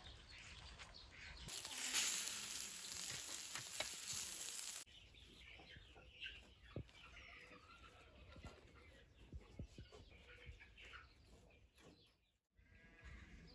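Quiet farmyard ambience with faint bird calls and small scattered clicks. A steady hiss runs for about three seconds near the start and then cuts off suddenly.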